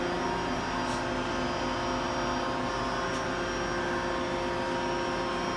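Steady machinery drone with several fixed tones, the background hum of a machine-shop floor, with two faint clicks, about a second in and about three seconds in.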